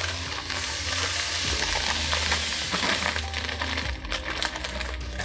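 Fine white sugar sand pouring from a plastic bag onto the floor of an empty glass aquarium: a steady, dense hiss of grains. The hiss stops almost four seconds in as the bag runs empty, leaving a few light rustles.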